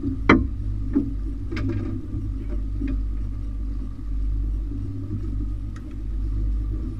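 Outboard motor running steadily, a low rumble with a faint steady whine above it. A few sharp knocks on the boat cut through, the loudest shortly after the start and another about a second in.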